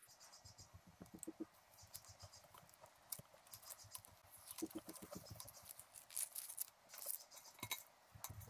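Faint scratching and crinkling of blue masking tape being peeled off a painted tube in small pieces, with light irregular ticks and rustles as the excess tape is pulled away from a razor-cut outline.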